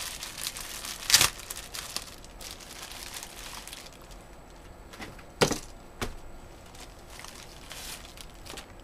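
Plastic packaging crinkling and rustling as it is handled, with a sharp knock about a second in and two more knocks around five to six seconds in as items are set down.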